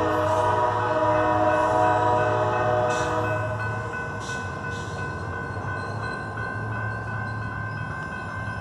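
Amtrak passenger locomotive's horn sounding a held chord of several notes, cutting off about three and a half seconds in. After it, the diesel locomotive's low engine hum and train running noise carry on, with a thin steady high tone.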